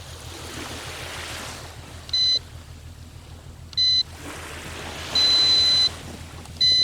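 Four high electronic beeps, two short then two longer, from a small electronic beeper over the steady wash of ocean surf.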